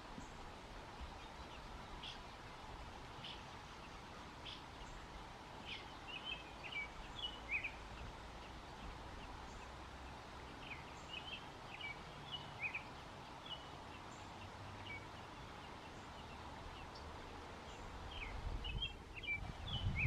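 American robin nestlings begging with faint, short, high peeps in scattered clusters as the parent robin feeds them, over a steady background hiss. A low rumble rises near the end.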